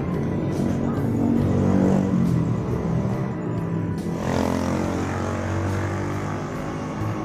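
Yamaha NMAX scooter's 155 cc single-cylinder engine running and revved up twice. It makes the rough engine noise that the owner is trying to trace.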